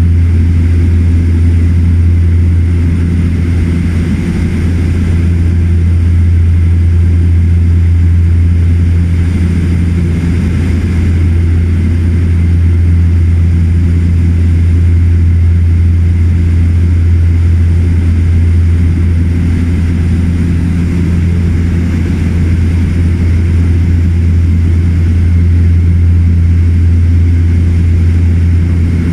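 Loud, steady low drone of a de Havilland Canada DHC-6 Twin Otter's twin turboprop engines and propellers in flight, heard from inside the cabin.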